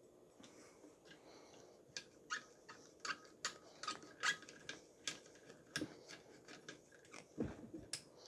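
Hand screwdriver driving a long housing screw into a pool pump motor's end housing: a run of faint, sharp clicks, about two or three a second, starting about two seconds in.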